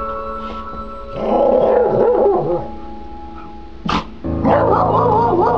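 A dog vocalizing in wavering, growly whines, twice: about a second in and again from about four seconds, over background music of held tones. A sharp click comes just before the second stretch.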